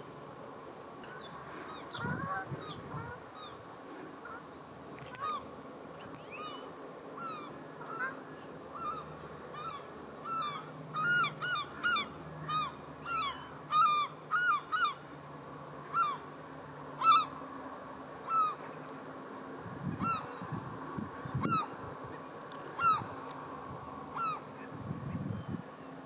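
A flock of estuary birds calling: many short, repeated calls that come thickest in the middle, over a steady low background, with a few low rumbles near the end.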